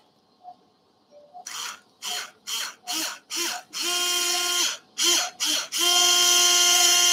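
Surgical power drill with a 2.5 mm bit drilling a screw hole through a puppy's tibia, run in about eight short pulses and then held on steadily from about two-thirds of the way in.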